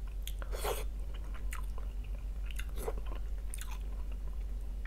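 A person chewing and smacking their lips while eating meat from a boiled fish head, with a few short wet mouth smacks spread through.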